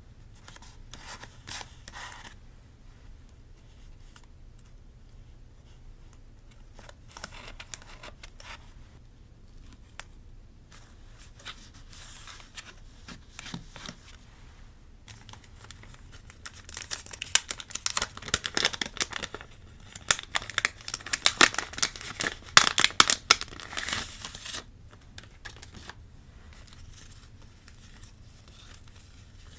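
Paper being handled while scrapbooking a journal: short spells of crisp paper rustling, then a louder, busier run of sharp crackling paper noise in the second half, as from paper being torn or cut.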